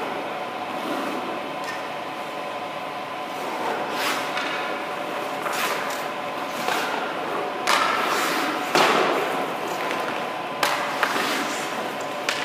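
Hockey goalie's skate blades scraping the ice in short, sharp strokes as he pushes off and stops, about eight of them coming every second or so from about four seconds in. A faint steady hum runs underneath.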